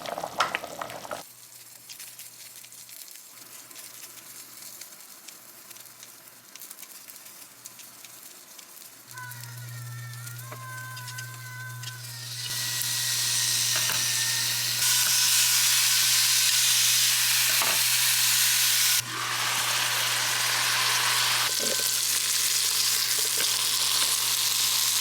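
Food frying in a hot pan: a loud, even sizzle takes over about halfway through, after a quieter stretch where a steady low hum and a faint high whine set in. The sizzle steps abruptly louder and softer a couple of times.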